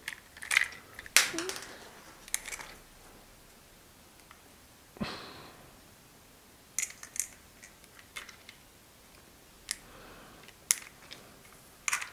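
Scattered clicks and taps of 3D-printed plastic gear-puzzle pieces being handled and pressed onto their connectors, with one duller knock about five seconds in.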